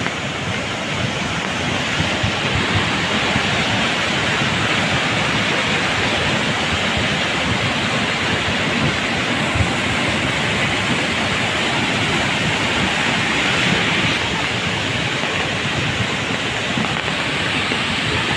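Muddy floodwater rushing in a torrent down a rocky hillside gully. It makes a loud, steady roar of water.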